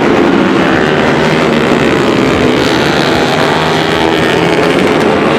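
Several tuned Honda CRF150L supermoto motorcycles, single-cylinder four-strokes bored out to 180cc, racing at high revs. Their engines overlap into a loud, continuous, dense engine noise.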